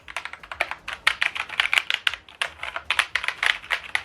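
Keys of a Logitech PRO X TKL mechanical keyboard with GX Brown tactile switches being typed on in a rapid, uneven run of clacking keystrokes.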